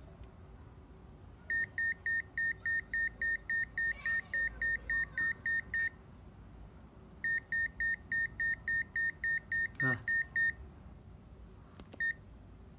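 Digital multimeter beeping in quick, high-pitched pulses, about three or four a second, in two runs with a pause between, then a single beep near the end. Its probes are on the charger's roughly 300-volt rail, and pulsed beeping is how such meters warn of a dangerous voltage. A short knock comes near the end of the second run.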